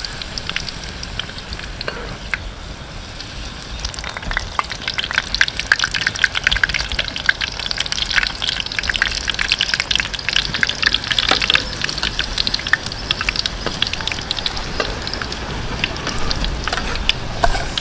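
Chicken hearts in a coating deep-frying in hot oil in a wok: a dense, steady sizzle of fast crackles, thickest and loudest through the middle.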